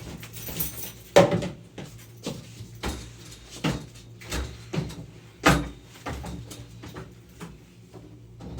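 Scraper and utility knife scraping and knocking at a drywall ceiling, working off loose, bubbled paint: irregular scrapes and knocks, the loudest about a second in and about five and a half seconds in.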